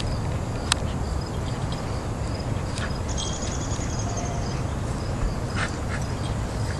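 Outdoor ambience: an insect chirping over and over in short high notes, with a brief faster high trill about three seconds in, over a steady low rumble and a few faint clicks.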